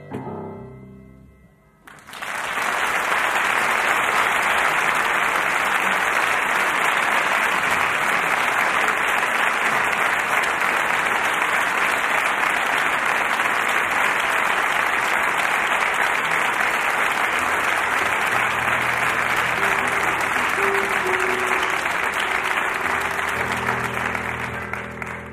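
Audience applauding steadily for over twenty seconds, the clapping starting about two seconds in as the last notes of a piece die away. Near the end a few low instrument notes sound under the applause.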